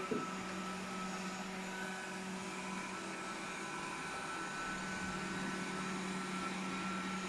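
Robot vacuum cleaner running: a steady motor whir with a constant hum, and a brief low bump right at the start.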